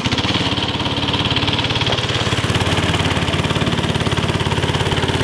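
The Manco Dingo buggy's 5-horsepower single-cylinder lawnmower-type engine running steadily as the buggy drives, with a fast, even beat.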